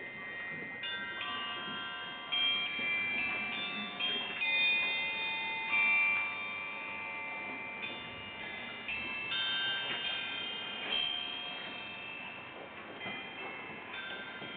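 Hanging wine glasses and small bells struck one after another, each strike starting a clear, high ringing tone that holds and overlaps the others in a shifting cluster of pitches.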